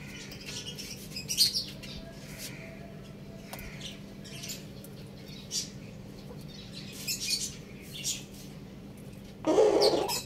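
Birds chirping: short, high chirps scattered irregularly. Near the end comes one brief, louder and lower sound.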